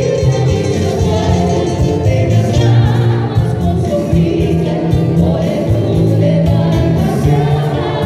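Live music: women singing a melody into microphones, backed by acoustic guitars and keyboard, played through a PA system.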